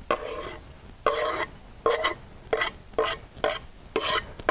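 Chef's knife blade scraping minced chives across a wooden cutting board: a series of short scrapes, about two a second, getting shorter toward the end.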